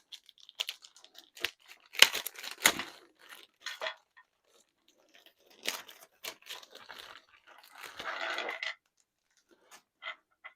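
Packaging being handled and torn open: irregular crinkling and crackling, with sharp rustles about two seconds in and a longer rustle near the end.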